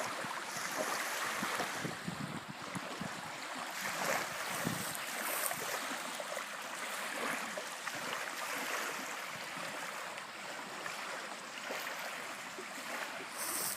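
Wind blowing with lake water lapping, an uneven rushing noise that comes and goes.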